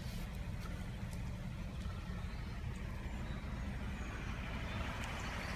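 Steady low rumble of a vehicle driving, heard from inside the cabin, with a hiss that grows near the end.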